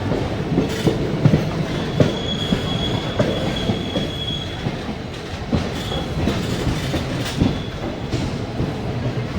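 Passenger train running on the rails, its wheels knocking irregularly over the track, with a thin high wheel squeal that comes and goes over the rumble.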